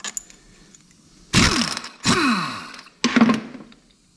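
A handheld power wrench run in three short bursts, spinning out the bolts that hold the engine's front cover over the oil pump and pressure relief valve. Its pitch falls as it winds down after each burst.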